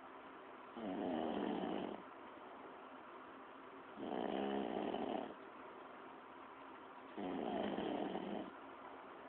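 A person snoring in their sleep: three snores about three seconds apart, each lasting just over a second.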